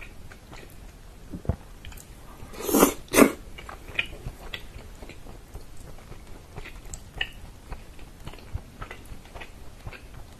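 Close-miked chewing and biting of pressure-cooked, bone-in chicken in tomato sauce, with small wet clicks from fingers pulling the meat apart. Two louder, longer wet sounds come about three seconds in.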